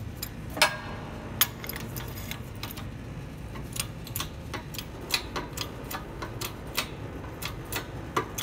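Irregular metallic clicks and ticks, a few each second, as a homemade press pushes down the spring plates of a John Deere 8200 PTO clutch pack, over a steady low hum.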